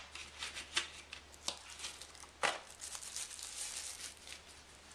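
Packaging being handled while a small power bank is unboxed: cardboard box and plastic tray rustling, with scattered light clicks and knocks, the loudest about two and a half seconds in.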